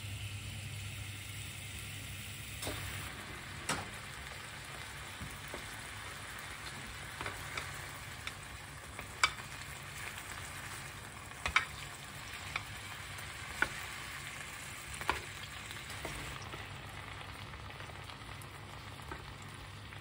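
Chicken skewers sizzling as they fry in oil in a pan. The sizzle strengthens about three seconds in, and metal tongs click sharply against the pan several times as the skewers are turned.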